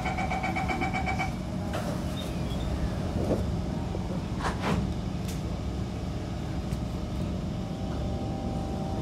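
Door-closing warning beeps of a Kawasaki C151 MRT train, a rapid pulsing two-tone beep that stops after about a second, then a knock. The train then runs off with a steady low rumble and hum from its motors and wheels, with a few clicks and knocks along the way.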